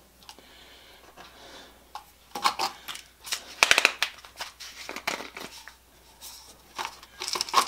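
Small plastic pill bottles and their caps handled on a workbench: scattered light plastic clicks, taps and rattles, with a cluster of sharp clicks around the middle and a few more near the end.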